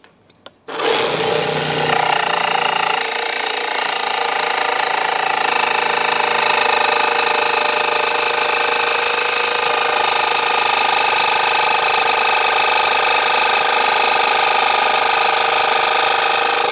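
Parkside 20 V cordless jigsaw with a fine metal-cutting blade, pendulum action off, sawing through a sheet of hard metal, tougher than aluminium. It starts about a second in and runs steadily under load, stopping abruptly at the end.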